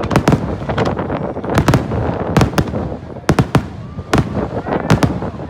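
Fireworks going off in a rapid series of sharp bangs, many in quick pairs, about a dozen in all, with continuous crackling between them.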